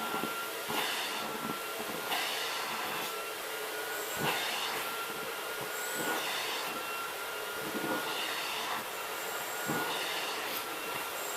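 Miele Red Star vacuum cleaner running with a steady whine and hiss, its nozzle drawn over a long-haired cat's fur in repeated short swishing strokes, about one every second or so.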